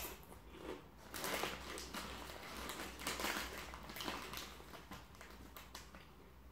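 A Walkers potato crisp being chewed with the mouth near the microphone: a sharp crack at the start, then a run of crackly crunches that thin out after about five seconds.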